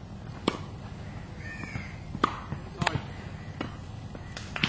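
Tennis ball being hit back and forth: sharp, short pops of racket strikes and ball bounces, about five, irregularly spaced.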